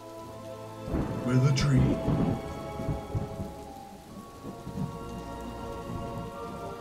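Thunder-and-rain sound effect laid over a held, droning music score. A loud rumble of thunder comes about a second in, then fades back under the steady tones.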